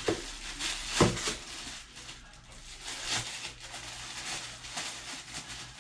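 Plastic wrapping rustling and crinkling as a pair of sneakers is pulled out of a plastic bag and a clear plastic sleeve, with a sharper crackle about a second in and another near three seconds.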